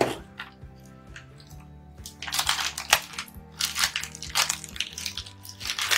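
Background music with a steady beat, over rough bursts of rustling and clatter from about two seconds in as plastic ink bottles and their packaging are handled.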